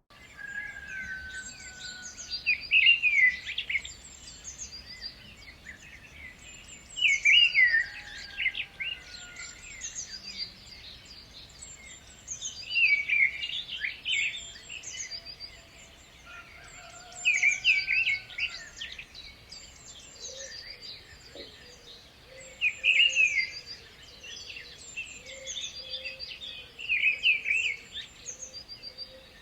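Birds singing and chirping over a faint steady outdoor background, with one louder song phrase recurring about every four to five seconds.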